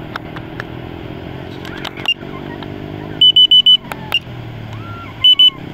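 A passing motor vehicle engine drops in pitch over steady outdoor noise. A shrill electronic beeper cuts in with four quick loud beeps about three seconds in and two more near the end, with single beeps just before and after the run.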